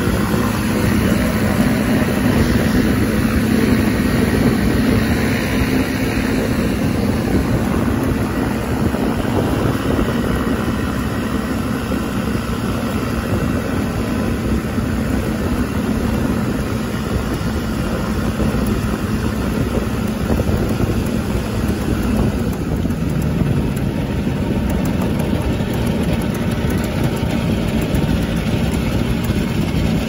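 Engine of a weight-shift microlight trike running steadily as it taxis on the ground, a steady hum over a noisy low rumble, a little louder in the first few seconds.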